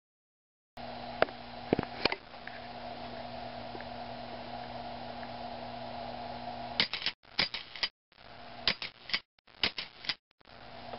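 Steady low electrical hum from a wired model train operating car setup, starting under a second in. Sharp clicks come about a second in, and a burst of clicks with brief cut-outs in the sound between about seven and ten seconds in.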